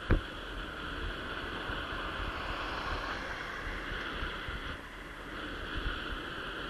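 Superpedestrian e-scooter ride: steady wind rush on the microphone over low road rumble, with a single sharp knock right at the start.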